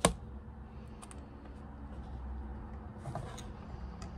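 Small handling noises of thin wire and solder being worked on a cutting mat for soldering: a sharp click right at the start, a couple of light ticks about a second in and a short rustle about three seconds in. A low steady hum runs underneath.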